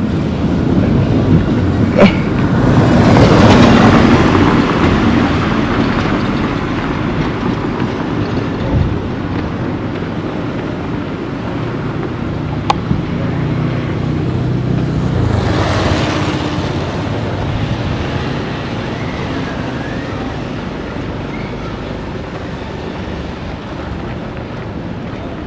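Engines of large motor vehicles running, with two passing close, about three and sixteen seconds in, plus a couple of sharp knocks.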